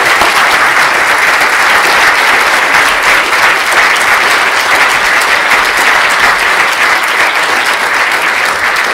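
Audience applauding: a loud, steady round of clapping.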